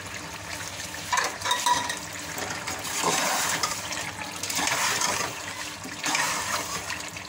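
Potato and aubergine pieces sizzling in ghee in an aluminium pot while a steel ladle stirs them, with louder scrapes of the ladle against the pot about a second in, around three seconds and near six seconds.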